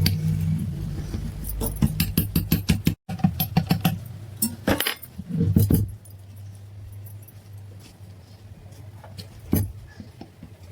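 Metal parts clinking and rattling in a fast run of sharp clicks for the first six seconds, cut briefly about three seconds in. After that a faint low steady hum, with one louder knock near the end.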